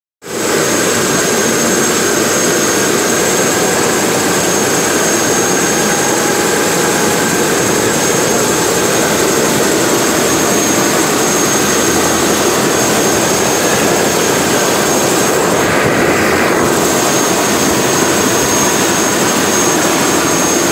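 Helicopter turbine engine running on the ground with the main rotor turning, a steady high turbine whine over a constant rush of noise. The helicopter is an AS350 Écureuil-type single-engine turbine helicopter.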